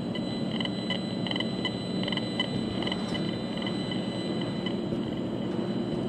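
Steady car road and engine noise heard from inside the cabin, with a handheld RF meter's speaker giving short, irregular beeps through the first half. The beeps are the meter's audio signal for pulsed microwave transmissions, which the driver takes for smart meters.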